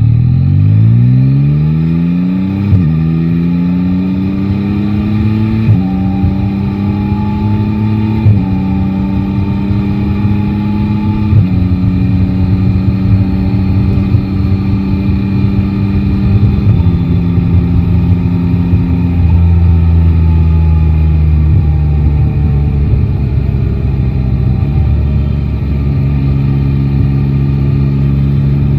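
Yamaha Tracer 9 GT's 890 cc three-cylinder engine accelerating through the gears, its pitch climbing and then dropping sharply at each of four quick upshifts. After that it runs steadier, steps down twice to lower revs, and picks up slightly near the end.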